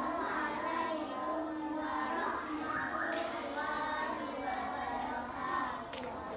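A group of young children chanting a prayer recitation together in a sing-song unison.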